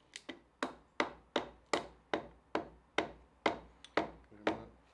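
Piston being tapped down through a piston ring compressor into the cylinder bore of a 1940 Fordson N engine block with the end of a wooden handle: about a dozen even light taps, roughly two and a half a second.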